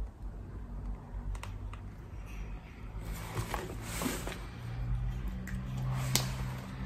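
Scattered light clicks and taps of small cosmetic packaging being handled, with a cluster about three to four seconds in and a sharper click near the end, over a faint steady low hum.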